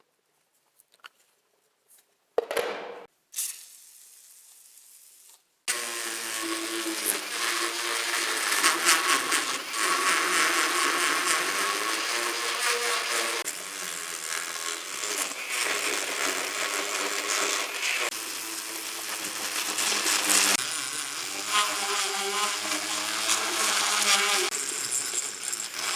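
An electric power tool working on metal, loud and continuous, its motor pitch dipping and rising with the load. It starts about six seconds in, after two sharp knocks.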